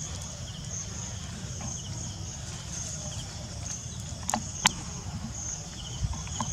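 Insects chirping in a steady pulsing rhythm over a low, even rumble, with two sharp clicks about four and a half seconds in.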